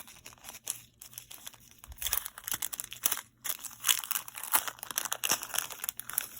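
Crinkly plastic packaging rustling and crinkling as it is handled and opened, busier and louder from about two seconds in.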